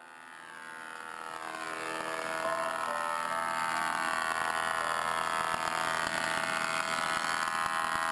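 Grizzly G5851 24-inch 5 HP planer running and taking a cut on a board. The sound swells over the first two seconds, its whine sinking in pitch as the cut takes load, then holds steady. The knives are dull at this point, dull enough to cause tear-out.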